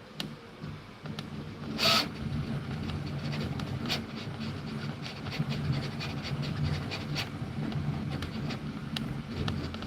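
3D printer running a print: a steady motor hum with scattered light clicks, and one louder short hiss about two seconds in.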